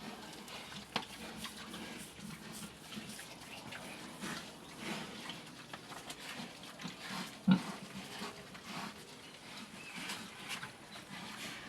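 Young pigs feeding together, with irregular grunts and eating noises and one louder knock a little past the middle.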